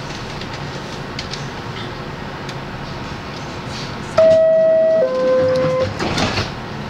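R62A subway car's door-closing chime, two descending tones about a second in all, sounding about four seconds in over the steady hum of the stopped train. A short burst of noise follows right after the chime.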